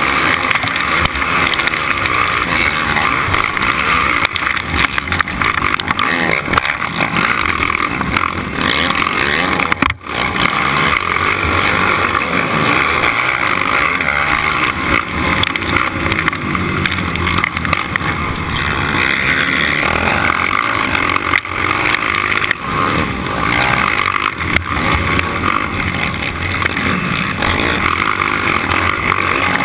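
Four-stroke racing quad's engine running hard, heard from a camera mounted on the quad, mixed with a loud steady rushing noise. The sound drops out briefly about ten seconds in.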